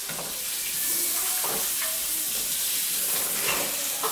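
Food frying in a pan on the stove, a steady sizzle with a few light knocks.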